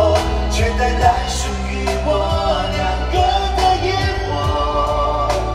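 Live Cantopop band music, with a steady deep bass and scattered drum hits under a sustained melody line.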